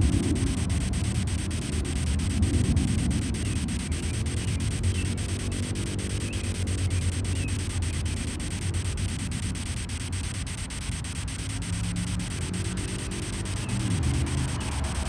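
Ghost-hunting app (GhostTube) playing spirit-box static: a steady hiss of white noise with a heavy low rumble underneath, chopped by a fast, regular flicker.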